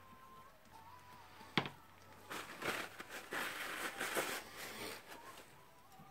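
Hand work on the parts of a dismantled rotary hammer: a sharp click about a second and a half in, then about three seconds of scraping and rustling.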